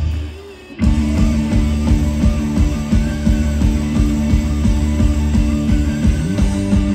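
Live rock band playing a song through a large PA: electric guitars, bass and drums. The sound drops away briefly at the start, then the full band comes back in just under a second in and carries on with a steady, driving beat.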